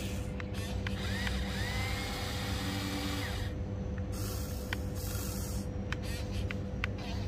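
Huina 1594 RC excavator's small electric motors and gears whirring as it works its boom and bucket. A thin whine runs from about a second in to about three seconds, with scattered light clicks.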